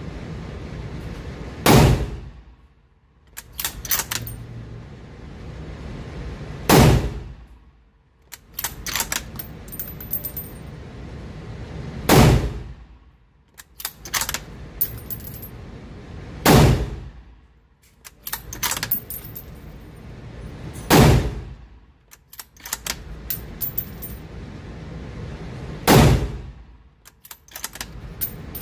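Ruger American .308 bolt-action rifle fired six times at a steady pace, a shot every four to five seconds, each followed by a quick run of metallic clicks as the bolt is worked to eject the case and chamber the next round.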